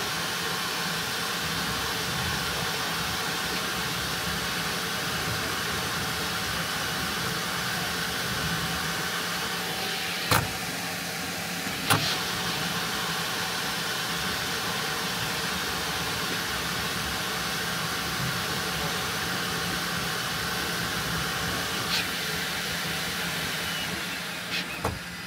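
Bambu Lab H2D 3D printer running a print job: a steady whir of fans and motors with a constant hum, broken by a few sharp clicks, twice around ten to twelve seconds in and again near the end.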